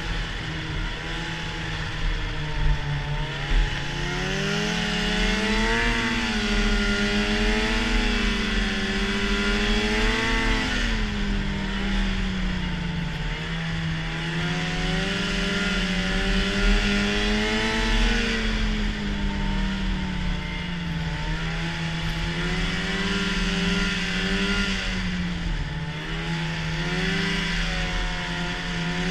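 Arctic Cat snowmobile engine running under way, its pitch rising and falling several times as the throttle is worked, over a steady hiss. Two brief thumps come about three seconds in.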